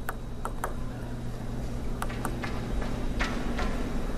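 Light sharp clicks of a plastic table tennis ball being bounced before a serve, a few taps at uneven gaps, over a steady low hum of the arena.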